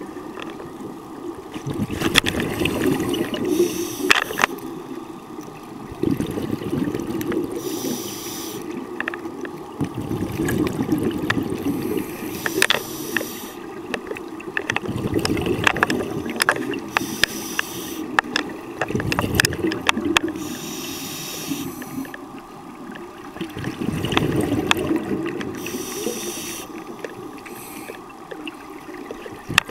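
Underwater sound of a diver's breathing: bursts of bubbling hiss from exhaled air every few seconds, with scattered clicks and a steady low rumble of water.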